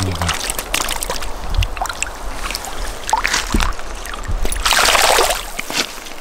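Shallow river water splashing and sloshing at a gravel edge as a released lenok flaps in the shallows, with one louder splash about five seconds in as it swims off.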